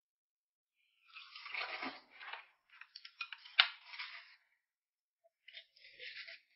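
Close-up eating sounds: crunching and chewing in crackly spurts, with one sharp click about three and a half seconds in.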